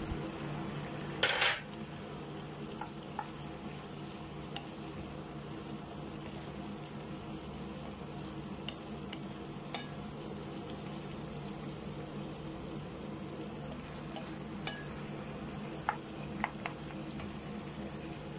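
Carrots and onions sizzling in a pan of sweet-and-sour sauce as a wooden spatula stirs them, with a steady hiss and occasional light clacks of the spatula against the pan. A short loud burst of noise just over a second in.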